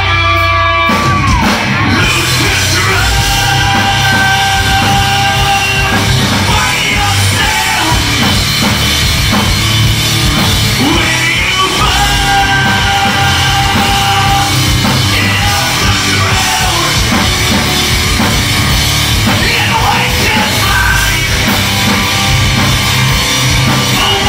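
Rock band playing live: distorted electric guitars, bass and a pounding drum kit, with a singer yelling over them. The full band with drums comes in about a second in, after a held note.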